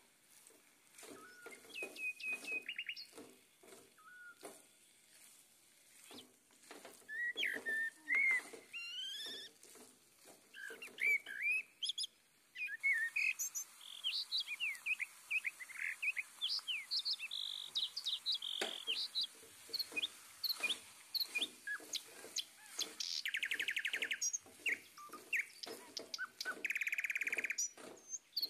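Small birds chirping and twittering in the background, with short quick chirps and a few buzzy trills. A spatula scrapes and taps in a metal pan while masala is stirred, and there is a steady hiss for a few seconds in the middle.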